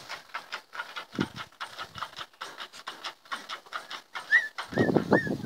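Puppies yipping and squeaking in play: short high-pitched rising and falling calls scattered over many light clicks, with a louder, busier run of yaps near the end.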